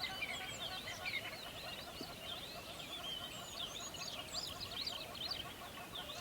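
Many birds calling at once: a dense, unbroken run of short high chirps and squeaks.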